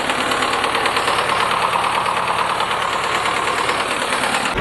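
T-25 tractor's two-cylinder air-cooled D-21 diesel running steadily while parked, with a fast even clatter. It has just been rebuilt with new piston rings, and a tapping in it is something the owner suspects may be the valves.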